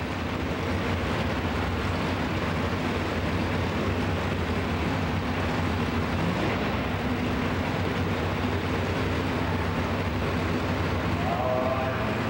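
Modified 4x4 pulling truck's engine idling steadily at the line.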